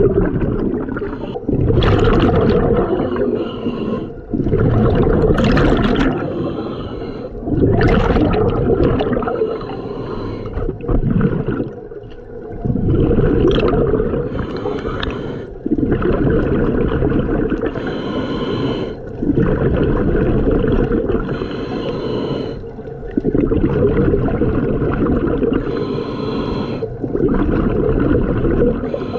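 Scuba breathing through a regulator, heard underwater. Each exhale releases a rumbling, gurgling rush of bubbles, and each inhale is a quieter hiss, repeating every few seconds.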